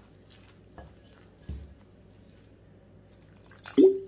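Spoon stirring a wet mix of soaked poha, oats and wheat flour in a glass bowl, with soft squishy scraping as water is worked into the batter. A low thump comes about one and a half seconds in, and a brief louder sound comes just before the end.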